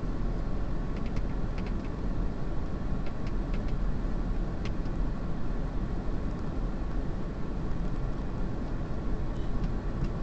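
Car engine idling, a steady low rumble heard from inside the stationary car, with a few faint light clicks in the first half.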